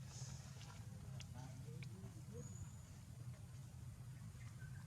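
Faint, short animal calls (a few chirps and squeaks and one brief high whistle) with a couple of small clicks over a steady low hum.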